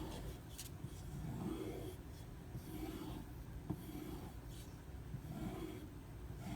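Steel knife blade drawn over a leather strop loaded with white compound: soft, rhythmic rubbing strokes about once a second, with one small click about midway.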